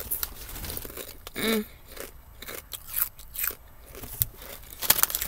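Someone biting and chewing kettle-cooked potato chips: a run of sharp, irregular crunches.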